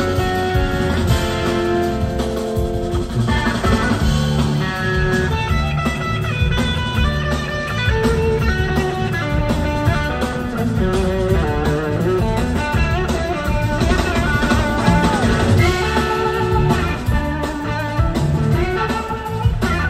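Live blues-rock band playing an instrumental jam. An electric slide guitar plays a lead line of sliding, gliding notes over organ, bass and two drum kits.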